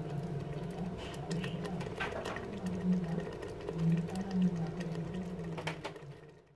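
Tomato sauce simmering in a cooking pot, with a few small pops or ticks, over a low wavering hum that fades out near the end.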